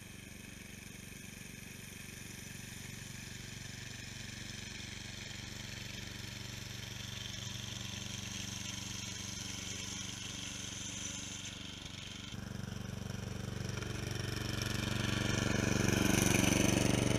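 Snapper rear-engine riding mower's 12 hp Briggs & Stratton engine running steadily while the mower pushes snow with a front plow, getting louder near the end as it comes close.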